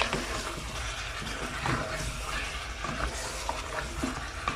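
Wooden spatula stirring and scraping chicken and potato pieces in a stainless steel saucepan, with scattered light clicks over a steady frying hiss as the chicken is mixed into the cooked-down spice base.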